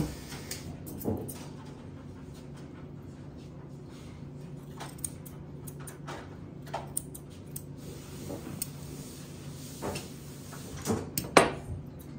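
Grooming shears snipping now and then through a Scottish terrier's coat, in short sharp clicks with a louder one near the end, over a steady low hum.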